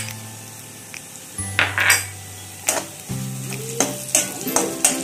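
A metal spoon clinks and scrapes against a pan several times while fried potatoes are stirred, with a light sizzle underneath.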